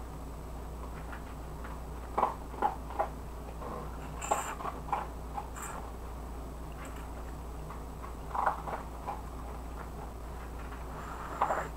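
Rice stick noodles being slurped and chewed: short, wet slurps and mouth noises in small clusters, about two to three seconds in, again around four to five seconds, and near eight and a half seconds, over a low steady hum.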